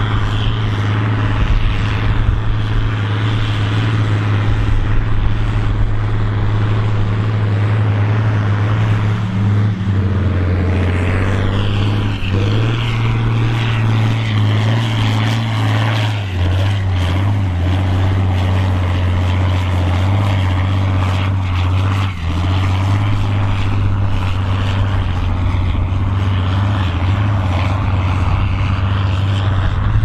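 John Deere 4440 tractor's turbocharged six-cylinder diesel running hard under load while pulling a plough at speed. The engine note is loud and steady, shifting pitch a few times.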